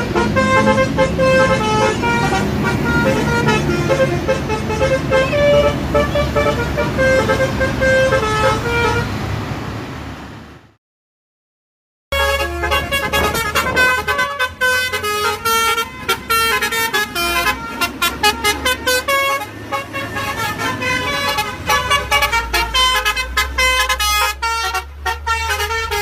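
Indonesian 'telolet' multi-tone bus horns playing quick, chiming tunes of short repeated notes. The first horn fades out about ten seconds in. After a second of silence, another coach's telolet horn plays over the low rumble of its engine.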